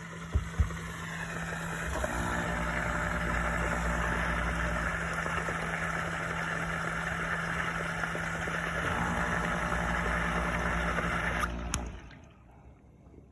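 KitchenAid dishwasher running mid-cycle: a steady pump hum under the rush of water spraying in the tub. The sound shifts slightly about two seconds in and again around nine seconds, then stops suddenly with a click near the end.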